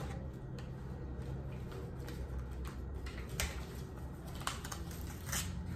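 Faint scattered clicks and taps from handling a small plastic toy figure and its packaging, over a steady low hum.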